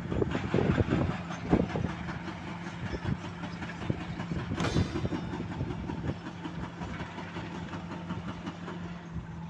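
An engine running steadily with a low hum, under irregular knocking and clattering that is busiest in the first two seconds. There is one sharp metallic clank about four and a half seconds in.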